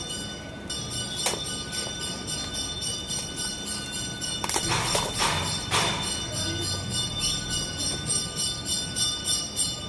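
Wrapping paper on a small gift box rustling and tearing as it is unwrapped, loudest in a burst about halfway through, over steady background music.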